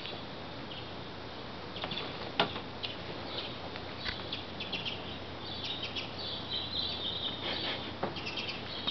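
Domestic cat chattering while watching through a window: scattered sharp clicks and short, high chirps, growing denser from about halfway in.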